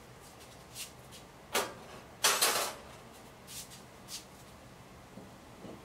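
A few knocks and a metal clatter from the hot parts of a Char-Broil Big Easy oil-less fryer being handled with a towel. A firm knock about a second and a half in is followed by a louder, slightly longer clatter, then a couple of light clicks.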